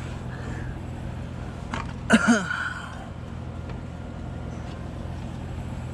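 A man's brief grunt about two seconds in, over a steady low hum.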